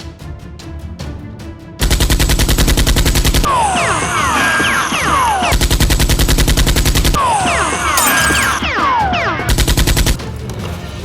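Automatic-gunfire sound effect in three long, rapid bursts, with clusters of short falling whines between them, like ricochets or spent casings. Background music plays before and after the bursts.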